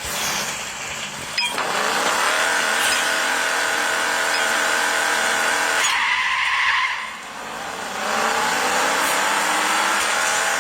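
Car engine revving hard, with tyres squealing. The pitch climbs and holds, falls away about six seconds in, then climbs again.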